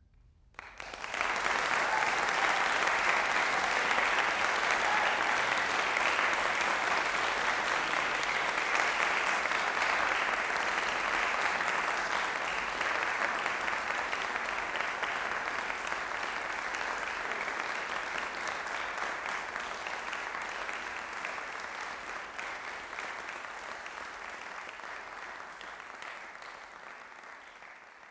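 Audience applause, breaking out about half a second in, holding steady for several seconds and then slowly tapering off toward the end.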